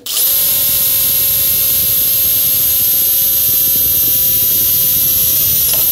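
Makita cordless drill boring a 3/16-inch pilot hole through aluminum motor-mount plates. The motor and bit give a steady, even-pitched high whine that cuts off at the very end.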